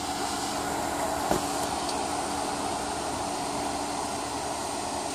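Steady background rumble and hum of an airport concourse's ventilation, with one light knock about a second in.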